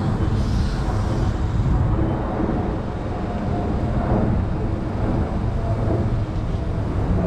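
Large engine running steadily, a deep even rumble that doesn't change.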